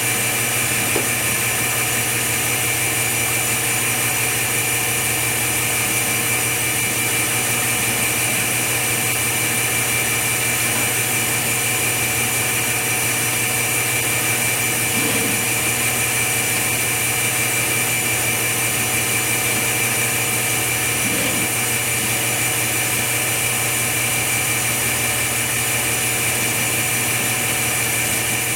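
Steady machine hum: a motor or fan running at a constant speed, holding several fixed tones over an even hiss, with a few faint soft knocks.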